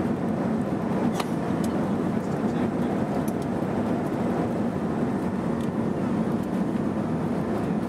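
Steady cabin roar of a Boeing 737-300 on approach with flaps down: its CFM56-3 turbofan engines and the airflow over the wing, heard from a window seat inside the cabin.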